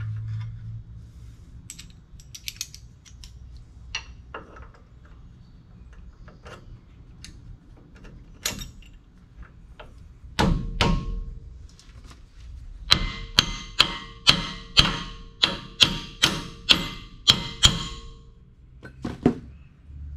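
A hammer driving the steel retaining key into a truck's front disc brake caliper. A few light metal clinks come first, then two heavier knocks about halfway, then a run of about a dozen sharp ringing metal strikes, roughly two a second, with one more strike just after.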